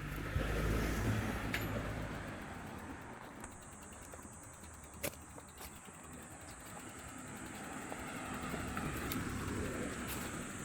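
A car going by on the road, its rumble loud at first and fading away over a few seconds; a vehicle's noise then swells again near the end. A few sharp clicks and a steady thin high tone run underneath.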